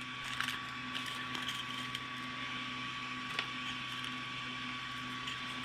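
Steady hum of the Creality Ender 3 V2 3D printer's cooling fans, with a few faint clicks.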